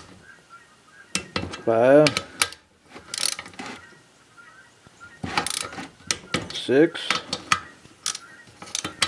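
Click-type torque wrench ratcheting in several short bursts of clicks as it tightens the cylinder-head bolts of a Briggs & Stratton flathead engine, with metal taps of the socket going onto the bolts.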